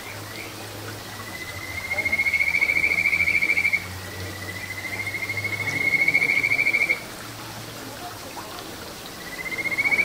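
Kajika frog (Buergeria buergeri) calling: long rapid-pulsed trills that rise slightly in pitch and swell in loudness, two full calls and a third starting near the end. This is the male's breeding-season advertisement call.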